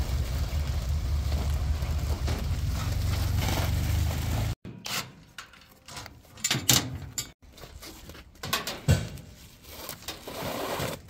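Wind rumbling on the microphone as a large plastic tarp is pulled off, then, from about four and a half seconds in, a string of short clanks and scrapes as galvanised steel crate rails are unbolted and handled.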